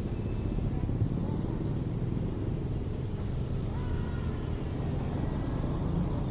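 Urban playground ambience: a steady low rumble of road traffic, with faint, distant children's voices calling now and then.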